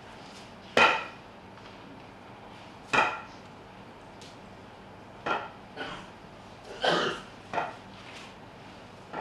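A stick knocking on a hard floor: about seven sharp knocks, each with a brief ring, at uneven intervals, the first two loudest.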